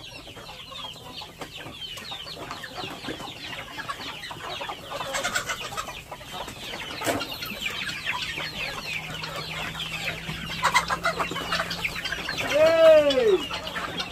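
A free-range flock of chickens clucking and chattering all around. One louder call rises and falls in pitch near the end.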